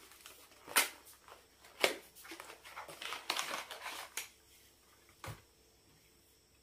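A cardboard product box being opened by hand: two sharp snaps of the flap or tab, then a stretch of rustling and handling of the packaging, and one more knock near the end.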